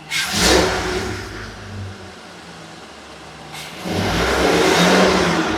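Ford 6.8-litre V10 gasoline engine revved twice, once right at the start and again near the end, dropping back to idle in between. It runs smoothly with the camshaft noise gone, after a new camshaft was fitted to cure a cylinder-4 misfire.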